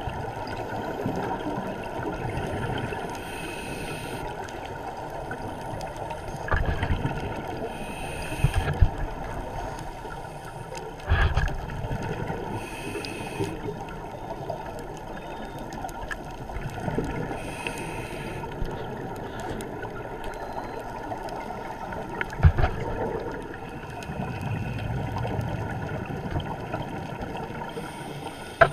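Scuba regulator breathing heard underwater through a camera housing: a hiss of inhaled air about every four to five seconds, with gurgling exhaled bubbles and a few low thumps in between, over a steady water noise.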